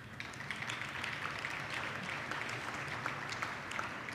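Audience applauding: many hands clapping at once, building up in the first half-second and then holding steady.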